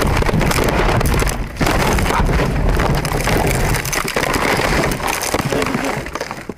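Car rolling over, heard from inside the cabin: loud, continuous crunching, scraping and rumbling of the body against the ground, with many sharp knocks. It stops abruptly near the end as the car comes to rest.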